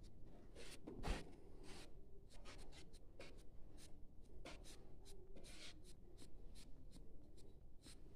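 Felt-tip marker scratching across notepad paper in a run of short, irregular strokes, faint, with one sharper stroke about a second in.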